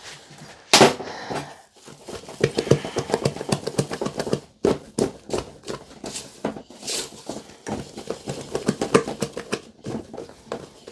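A utensil scraping and knocking against a mixing bowl as buttercream is stirred by hand: a quick, uneven run of small clicks and scrapes, with one louder knock about a second in.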